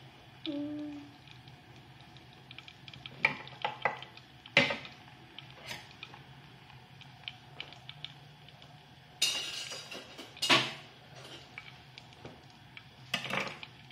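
Kitchen clatter: several sharp knocks and clinks of pans and utensils, with a noisier scrape-like burst in the second half, over a low steady hum. A brief low tone sounds about half a second in.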